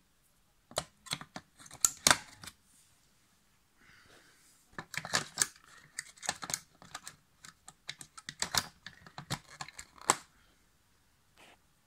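Sharp, irregular plastic clicks and knocks as C batteries are fitted into the plastic battery compartment of a tabletop air hockey game, in two bursts separated by a short pause.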